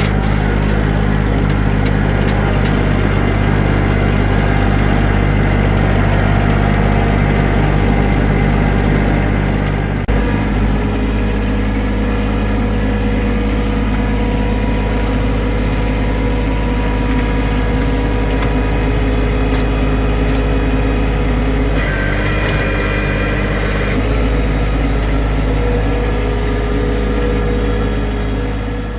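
A vehicle engine running steadily at low speed, its note shifting about ten seconds in, with a brief higher-pitched sound over it from about twenty-two to twenty-four seconds in.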